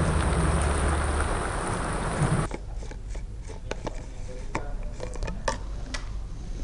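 Heavy rain pouring down on a road, a loud even hiss over a steady low hum, cutting off abruptly about two and a half seconds in. After that, quieter outdoor sound with scattered sharp clicks and taps.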